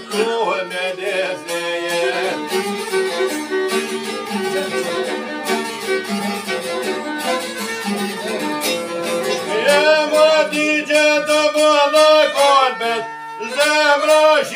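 Albanian folk song with violin and a plucked long-necked lute playing an instrumental passage. A man's singing voice comes in about two-thirds of the way through, with a short break just before the end.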